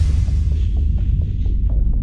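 A deep, steady low rumbling drone, a throbbing hum, with faint light ticks about four a second from about half a second in, typical of a cinematic transition or ambience sound effect.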